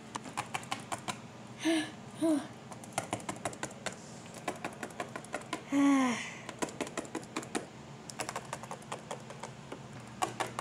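Small plastic toy figure tapped along a tabletop in quick little hops, a run of light clicks a few times a second. A person's voice makes two brief hums about two seconds in and one falling vocal sound about six seconds in.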